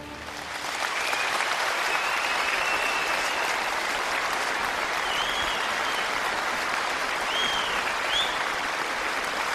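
Steady applause from a large crowd, starting suddenly, with a few short high whistles heard over it in the second half.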